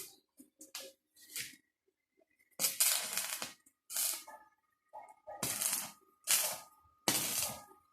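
Short bursts of harsh metalworking noise on steel grille bars, six or seven in a row, each under a second, louder from about two and a half seconds in.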